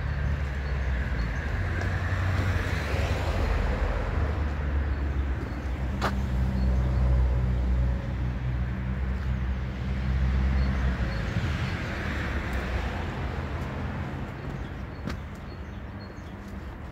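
Road traffic: a low engine drone that stops about two-thirds of the way through, with vehicles passing twice, swelling and fading, about two seconds in and again near the twelve-second mark. A single sharp click about six seconds in.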